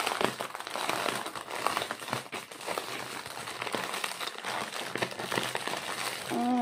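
Clear plastic packaging crinkling and rustling as it is handled, with many small, irregular crackles.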